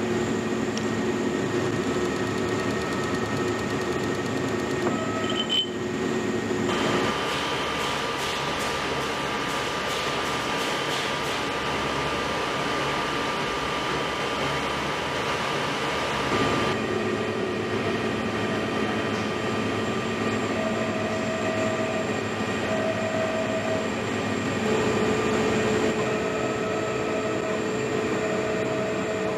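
Thread rolling machine and its drive running with a steady mechanical hum. The sound changes abruptly about seven and seventeen seconds in, and a few short repeated tones sound near the end.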